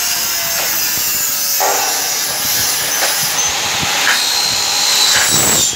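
Power tool cutting metal, a loud steady high-pitched cutting noise that stops right at the end.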